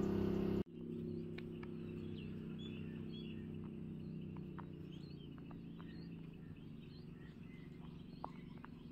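Birds chirping with short calls over a faint steady low hum. A louder hum cuts off abruptly just after the start.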